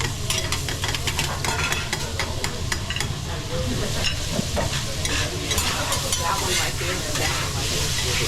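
Food sizzling on a teppanyaki griddle while metal spatulas scrape and clack against the steel, with rapid clicks in the first few seconds and the sizzle growing louder after about three seconds, over a low steady hum.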